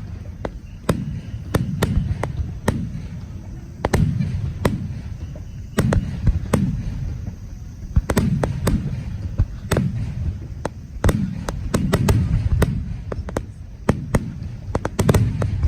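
Aerial fireworks shells bursting in quick succession: a deep boom about every second, each trailing off, with many sharp cracks in between.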